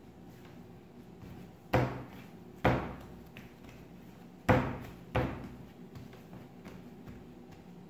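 Bread dough kneaded by hand on a tabletop: four dull thumps in two pairs as the dough is pressed and pushed down against the table.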